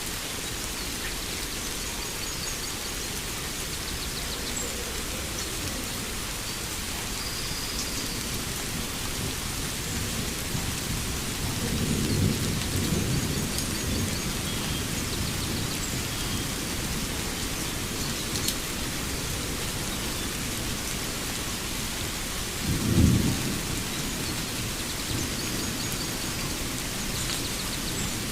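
Steady rain with thunder: a low rolling rumble a little before halfway, then a shorter, louder thunderclap about four-fifths of the way in, the loudest sound here. A few faint bird chirps sound over the rain.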